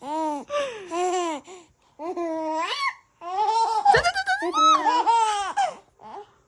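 Baby laughing hard in a string of high-pitched giggles: three short bursts about a second apart, then a longer run of laughter.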